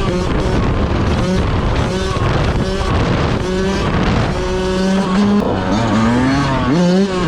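Yamaha YZ125 two-stroke single-cylinder dirt bike engine being ridden hard, its pitch repeatedly climbing under throttle and dropping back. A long rising rev runs from about five seconds in, and the pitch falls again near the end.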